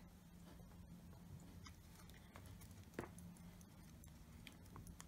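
Near silence: faint room hum with a few light clicks, the sharpest about three seconds in, from small screws and watch parts being handled as the back of the lighter watch is screwed on.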